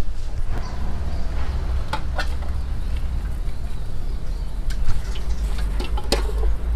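Chickens clucking on and off: a pair of short calls about two seconds in and another near the end, over a steady low rumble.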